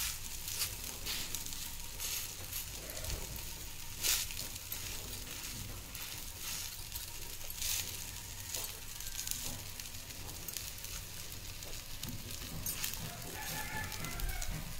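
Ragi adai dough sizzling faintly on a hot dosa griddle while fingers pat it out thin, with scattered small crackles.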